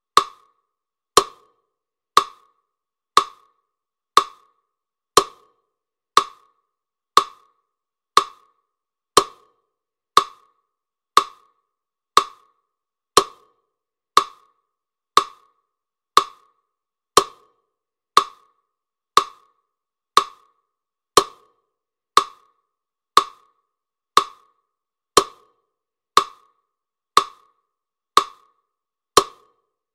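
A sharp, wooden-sounding tick repeating steadily about once a second, like a clock or metronome beat.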